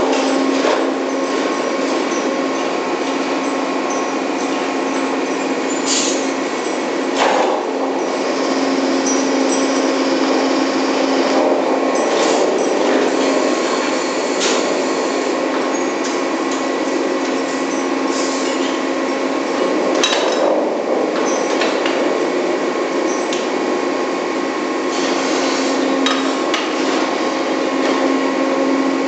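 Steady drone of drilling-rig machinery on the drill floor, with several sharp metal clanks from pipe handling and tongs at the rotary.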